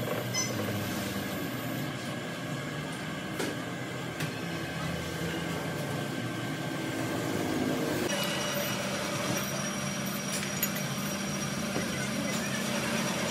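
Brake drum lathe running with a steady machine hum and whine. There are a couple of light metallic clicks about three and four seconds in, and the sound shifts to a brighter whine about eight seconds in.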